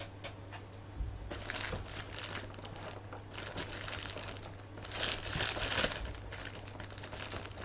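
Packaging being handled, crinkling and rustling in irregular bouts, loudest about five seconds in.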